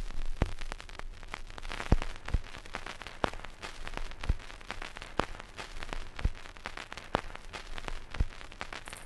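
Vinyl record surface noise: a continuous crackle of fine clicks with louder pops about once a second, over a low hum.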